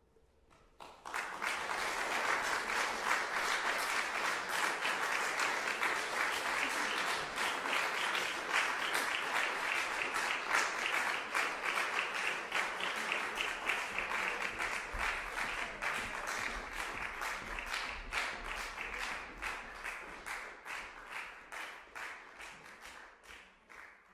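Audience applauding, starting about a second in after the music has ended. It holds steady, then thins toward the end into scattered claps and stops.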